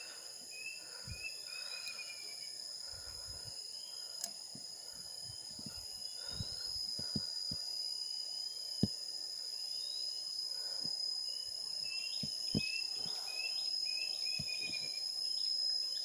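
Steady high-pitched insect drone, with several runs of short bird chirps over it. Scattered soft knocks and scrapes from an arm reaching into a tree-hollow nest, the sharpest about nine seconds in.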